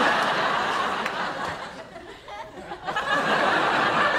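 Sitcom studio audience laughing: a big wave of laughter that fades, then swells again about three seconds in.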